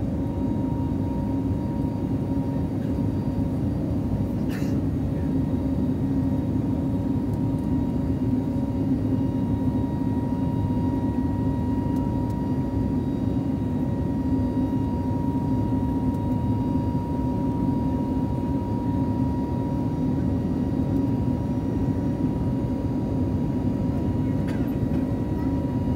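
Cabin noise of an Airbus A320neo (A320-251N) climbing just after takeoff: its CFM LEAP-1A engines run at climb power as a steady drone, with a steady hum and a thin, even whine on top.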